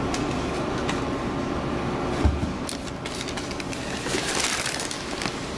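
White paper bakery bag being handled and opened, its paper crinkling and rustling, with a low thump about two seconds in.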